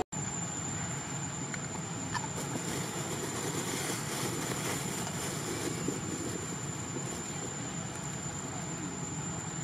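Steady outdoor background noise, an even hiss with a continuous high-pitched whine over it and a few faint ticks.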